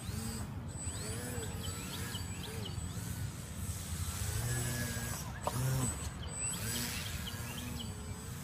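Motor and propeller of a radio-controlled Cub model airplane in flight, its pitch rising and falling as the throttle changes and it passes, loudest about five and a half seconds in.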